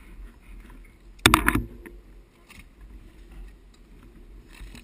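Low rumble of wind on the microphone, with a short burst of sharp rattling clicks about a second and a half in.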